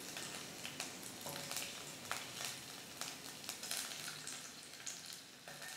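Ghee with cumin seeds and garlic sizzling faintly in a stainless steel kadai on a very low flame, with scattered small crackles.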